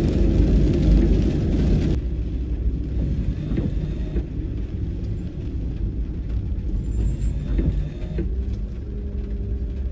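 A van's engine and tyres heard from inside the cabin while driving. About two seconds in it changes to a quieter, lower rumble as the van rolls slowly across a wet car park, with a few faint clicks.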